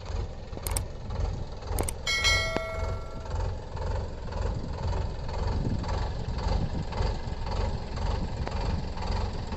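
Solis 5015E tractor's diesel engine running under load with a steady low pulsing beat. A short ringing tone sounds about two seconds in.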